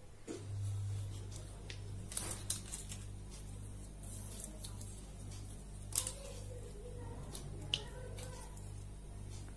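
Paper strips being handled and pasted with a glue stick: light paper rustles and a few sharp clicks, the loudest about six seconds in. A steady low hum with a slow pulse runs underneath.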